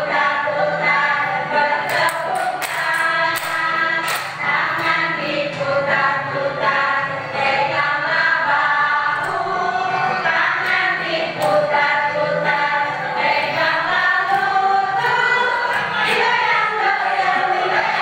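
Many voices singing a song together, steady and lively.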